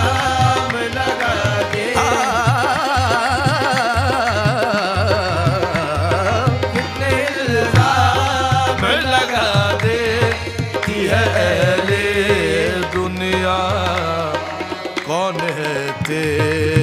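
Qawwali music between sung lines: tabla beating steadily under a wavering, ornamented melody line.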